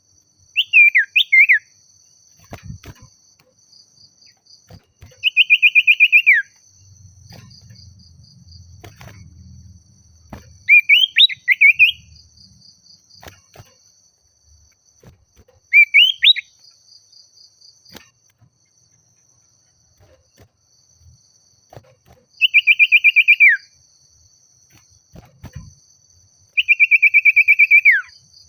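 Common iora (sirtu/cipoh) singing: six loud phrases a few seconds apart, some quick rising and falling whistles and some rapid trills that drop in pitch at the end, over a steady high insect drone.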